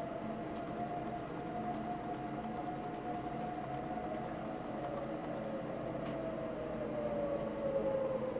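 Outdoor tornado warning sirens sounding the attack signal for severe weather: a held wail of two close tones that sags slightly in pitch near the end.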